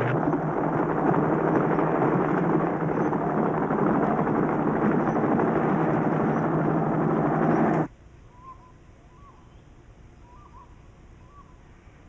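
Loud, steady engine noise from a buffalo muster: mustering vehicles and a helicopter, with a low hum under a dense rumble. It cuts off suddenly about eight seconds in, leaving a quiet background with several short, soft bird calls.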